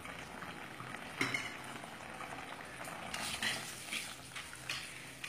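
Tomato and date chutney boiling in a pan, bubbling steadily. From about three seconds in, a spatula scrapes and stirs through it, mixing in the sugar just added.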